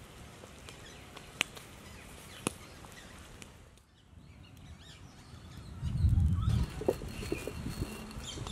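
A stone roller grinds mustard seeds on a flat Sri Lankan grinding stone (miris gala): a low, rough rumble with crunching clicks that starts about six seconds in and is the loudest sound. Before it, a clay pot boils over a wood fire, a steady hiss with two sharp crackles. Birds chirp in the background.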